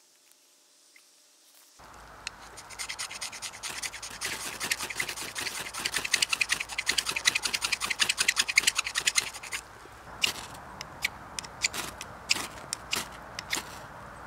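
After about two seconds of near silence, a knife scrapes a ferrocerium rod in rapid strokes to throw sparks onto fatwood shavings. Near the end the strokes slow to a few separate strikes.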